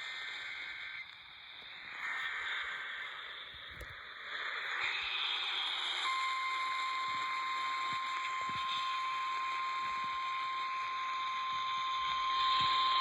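Weather radio alert over static: two short, screechy bursts of digital alert code in the first three seconds. Then, about six seconds in, the steady 1050 Hz warning alarm tone starts and holds, the signal that a warning message follows.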